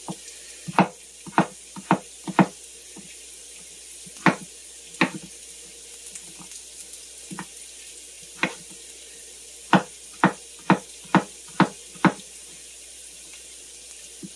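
Kitchen knife cutting potatoes into cubes on a cutting board, sharp single knocks at irregular intervals, then a run of about six cuts half a second apart near the end. Under it, the faint steady sizzle of carrots and celery sautéing in butter.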